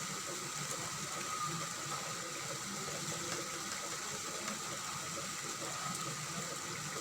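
Chicken pieces frying in oil in a pan with a steady, even sizzle.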